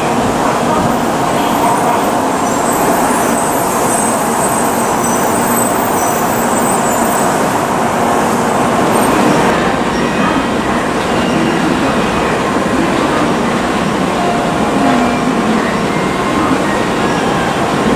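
N700-series Shinkansen pulling out of the station platform: a steady rolling and running noise. About halfway through it cuts to the steady noise of another N700-series train standing at the platform.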